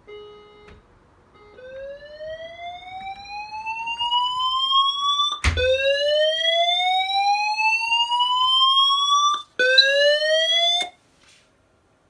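Fire alarm evacuation tone from a wall sounder. A brief steady tone is followed by slow rising whoops, each sweeping up in pitch for about four seconds, with a sharp click as the second whoop starts and the third one cut off short near the end. The alarm has been set off because smoke blocked the beam detector's infrared beam.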